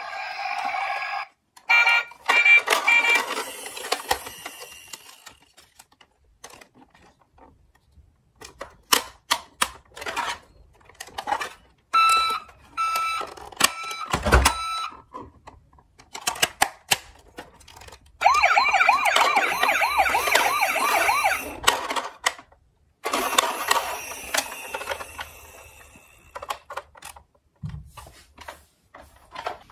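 Battery-powered toy ambulance playing its electronic siren and sound effects in several short bursts, including a fast warbling wail about two-thirds of the way through. Sharp plastic clicks and knocks come between the bursts as the toy's buttons and doors are worked.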